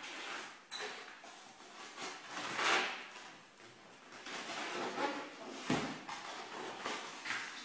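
Packaging being handled: rustling and scraping swishes of cardboard and plastic, with a sharp knock about two thirds of the way through.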